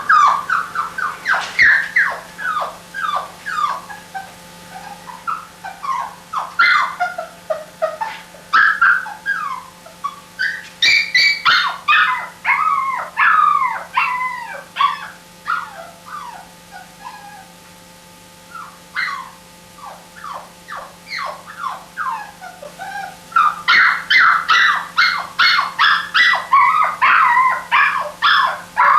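Puppy crying: quick runs of short, high-pitched whimpers and yips, each sliding down in pitch, with a short lull past the middle and a dense run of cries near the end.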